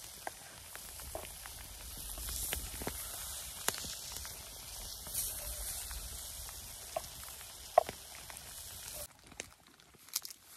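Food sizzling in a steaming frying pan over a wood campfire, a steady hiss with scattered sharp pops and crackles, one louder pop near the end. About nine seconds in it cuts to much quieter outdoor sound with a few light clicks.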